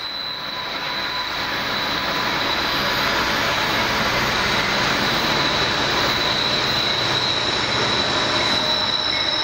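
Freight train's diesel locomotives approaching out of a rail tunnel, their rumble growing steadily louder. A steady high whine sounds throughout.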